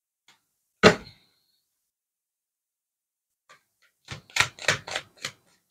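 Tarot cards being handled on a tabletop: one sharp tap about a second in, then a quick run of clicks and taps near the end.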